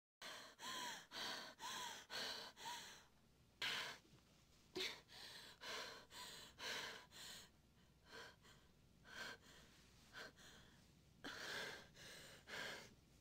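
A person gasping for breath in quick, ragged breaths, about two a second at first with short whimpering catches, then more uneven with brief pauses between runs.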